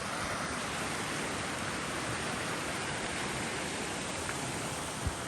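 Elk Creek, a forest stream, rushing and splashing in a steady, even wash of water noise. A soft thump comes near the end.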